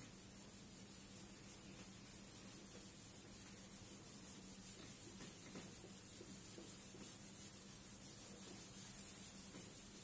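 A cloth duster rubbing over a whiteboard, wiping off marker writing with a faint, steady swish.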